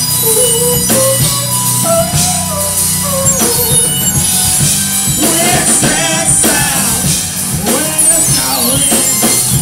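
Rock band playing live, with drum kit, guitar and a singing voice over a steady beat.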